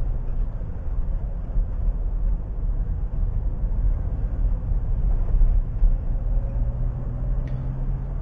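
Car driving on a paved road, heard from inside the cabin: a steady, low rumble of engine and tyres on the road.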